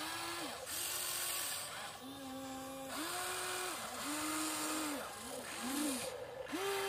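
Electric motors of a Huina RC excavator whining in a string of short runs, each rising in pitch as it starts and falling away as it stops, as the boom, arm and swing are worked in turn.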